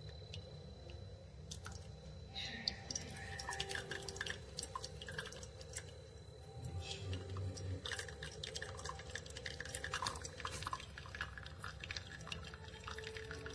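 Single-serve K-Cup coffee maker brewing: coffee dripping and spattering irregularly into the cup over a steady low hum, the dripping starting about two and a half seconds in.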